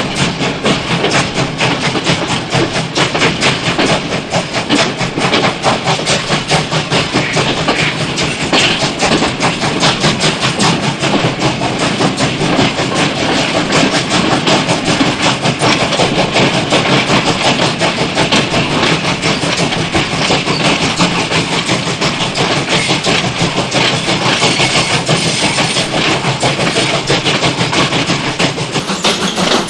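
A train running, with a steady, rapid clatter that keeps up throughout.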